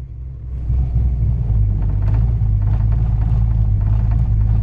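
Big-cammed Ford small-block V8 on Holley Terminator X fuel injection idling with the AOD automatic in drive. It is a little quieter for the first second as the gear takes up, then holds a steady low idle of about 900 rpm without stalling.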